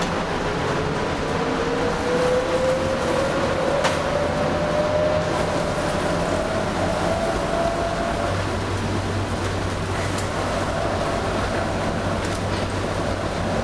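Bombardier Innovia APM 100 rubber-tyred people mover running along its guideway, heard from inside the car. An electric motor whine rises steadily in pitch for about eight seconds as the train picks up speed, then holds level over a continuous ride rumble. There is a single sharp click about four seconds in.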